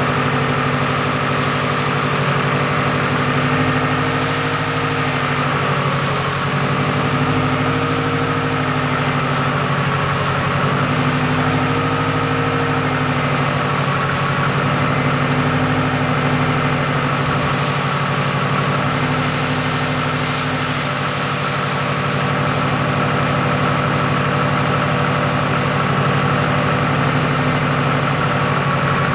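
Freshly rebuilt Subaru EJ257 2.5-litre turbocharged flat-four idling on its first start-up, its idle speed drifting up and back down gently every few seconds.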